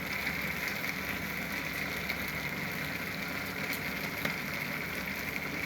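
Chilli sauce and Schezwan chutney frying in hot oil in a pan: a steady sizzle.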